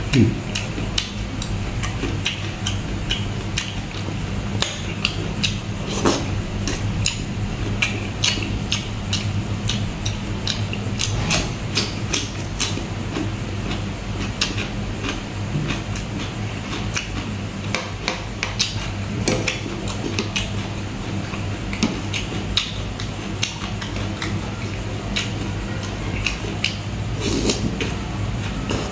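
Close-miked eating sounds: chewing a spicy salmon and papaya salad, with many wet mouth clicks and smacks, occasional clinks of a spoon on the dish, and a slurp of broth near the end. A steady low hum runs underneath.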